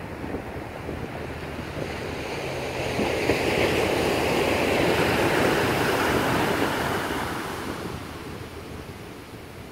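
Small ocean waves breaking on a sandy beach: the surf swells to its loudest a few seconds in as a wave breaks, then hisses up the sand and fades away.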